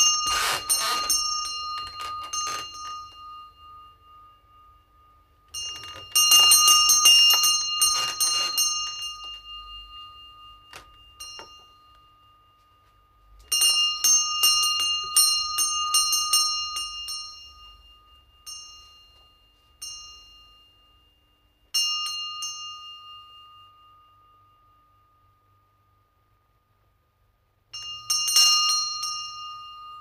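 Small shop doorbell jangling in about five bursts, each a cluster of quick metallic strikes that rings on and fades over a few seconds. A couple of lighter single dings fall between the bursts.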